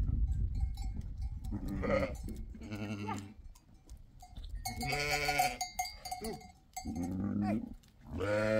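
Goats bleating repeatedly: about five calls, a second or two apart, some with a wavering quiver. Low rumbling noise runs through the first second.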